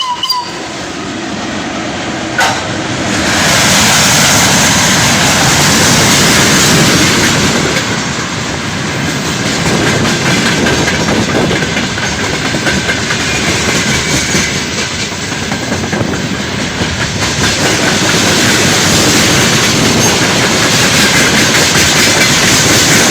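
VL80k electric locomotive and its short train of wagons passing close, wheels clattering over the rail joints in a steady loud rush that swells about three seconds in. A sharp click is heard just before the rush swells.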